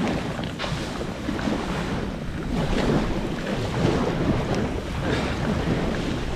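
Wood campfire burning with a few faint crackles, under a steady rush of wind that swells and eases every second or so.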